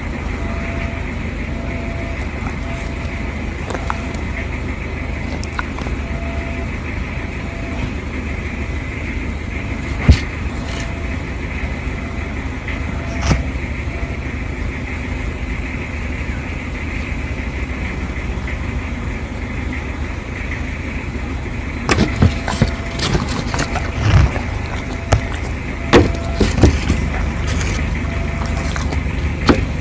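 A dog chewing and crunching food, heard as a run of sharp clicks and knocks in the last third, with a couple of single clicks earlier. Under it runs a steady low rumble.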